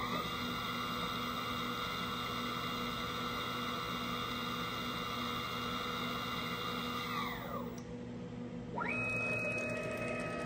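CNC router spindle whining at a steady speed, winding down about seven seconds in, then spinning back up about two seconds later and holding its speed.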